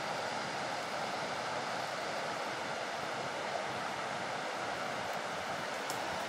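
Steady rush of a small river flowing over and around boulders.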